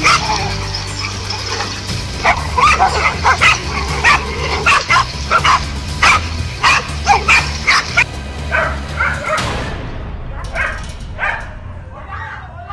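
Several dogs barking and yelping in quick, overlapping bursts while attacking a large snake, over a steady low hum. Near the end the barking turns thinner and sparser.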